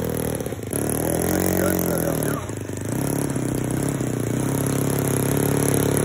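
Engine of a Seagull Models Gipsy Moth RC model biplane running, its pitch swelling and falling over the first couple of seconds as the throttle changes, then holding fairly steady.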